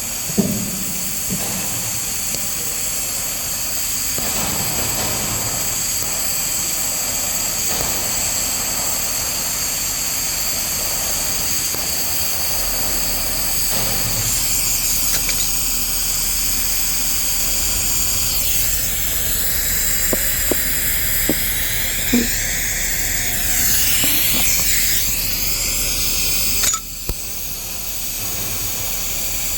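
Welding arc hissing steadily on a weldolet-to-flange pipe joint, with a few small clicks. The arc cuts out briefly near the end and then resumes.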